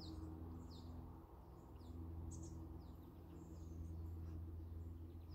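Wild birds chirping with short, quick high notes that each slide downward, repeating several times a second, over a faint steady low hum.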